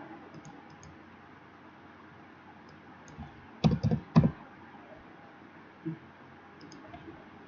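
Computer keyboard keystrokes: a quick cluster of three or four loud taps about halfway through, with a couple of fainter ones around them, over a low steady hiss.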